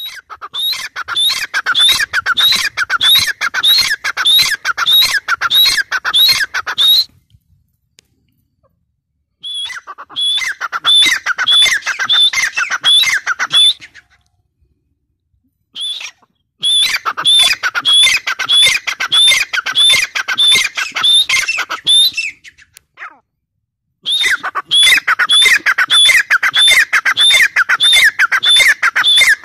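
Grey francolin calling: four bouts of loud, rapidly repeated notes, about two to three a second, each bout lasting several seconds with short silent pauses between them.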